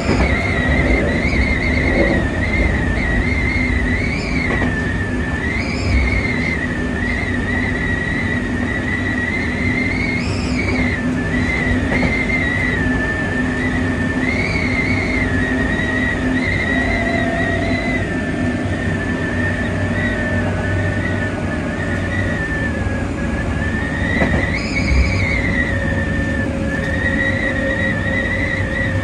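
Hankyu 5100 series electric train running at speed, heard from the front car: steady running noise with a constant low hum and a high tone that wavers up and down. A mid-pitched tone sinks slowly through the second half.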